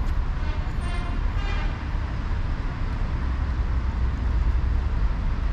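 Outdoor city ambience: a steady low rumble of road traffic, with a short pitched sound standing out about a second in.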